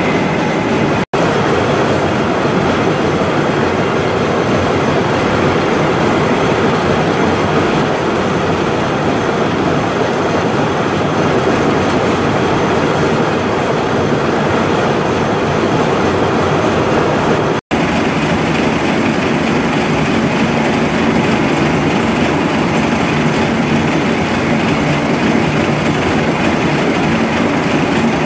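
Large lathe deep-hole boring a long Inconel 625 bar under flood coolant: a loud, steady machining noise of the cut and the spinning work, with coolant splashing and chips clattering. The sound drops out for an instant twice, once about a second in and once past the middle.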